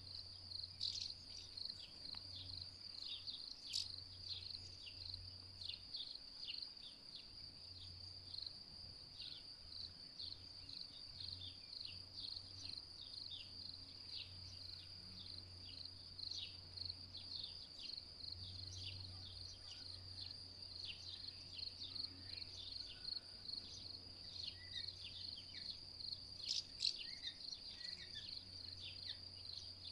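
Cricket-like chirring in a steady high, pulsing trill, with many short bird chirps over it and a low hum underneath.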